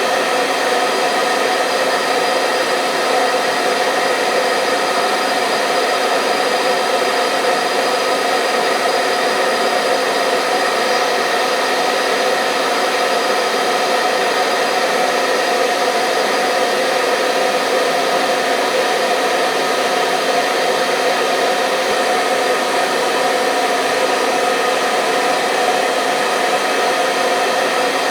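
Hair dryer running continuously at one steady speed: an even rush of blown air with the steady hum of its motor, unchanging throughout.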